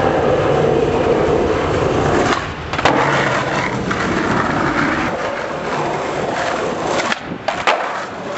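Skateboard wheels rolling over concrete, a loud steady rumble, with a sharp clack about three seconds in and a couple more near the end.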